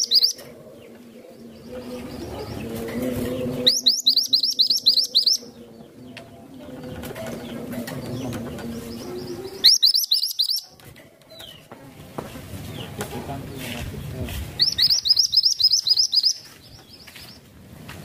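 Minivet singing in three bursts of rapid, high chirps, each a quick run of short falling notes lasting one to two seconds, with pauses between them.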